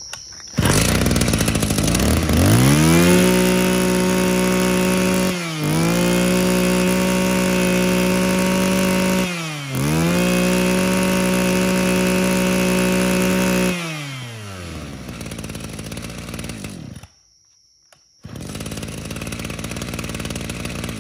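Mitsubishi TL23 23cc two-stroke brush-cutter engine revving up to a high, steady speed. Its throttle is let off and reopened twice, then the revs fall away and the engine stops near the end.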